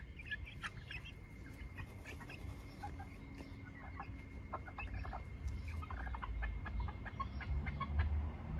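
A small flock of young hens clucking, in short, scattered calls close by.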